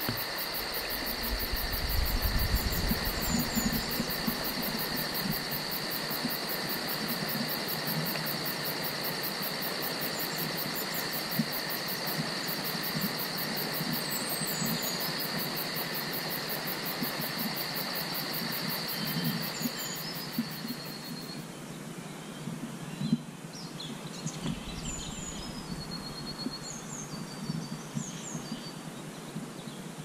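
Woodland birds calling in short, quick chirps and slurred notes, a few at first and many in the last third. Under them runs a steady high-pitched whine that stops about two-thirds of the way through.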